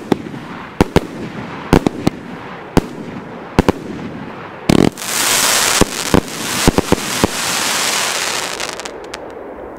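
Consumer firework cake firing: sharp shots and bursts at uneven intervals, then about five seconds in a loud, dense crackling hiss of bursting stars for some four seconds that dies away near the end.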